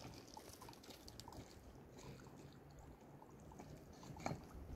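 Quiet background noise with a single short knock near the end.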